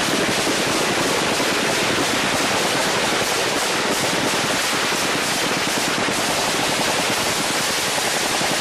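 Sustained rapid gunfire from automatic weapons: a dense, unbroken crackle of many overlapping shots.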